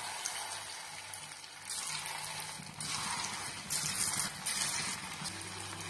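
Battered paneer pieces sizzling as they deep-fry in hot oil, the sizzle swelling up a few times as more pieces are dropped in.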